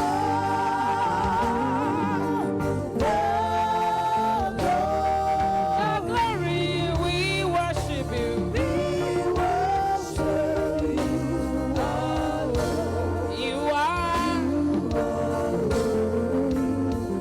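Gospel music: a voice sings long held notes with vibrato and melodic runs over instrumental backing.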